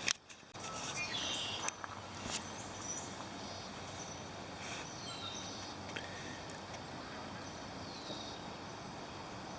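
Outdoor ambience of insects trilling steadily at a high pitch, with a few short bird chirps and a couple of sharp clicks, one at the start and one a little over two seconds in.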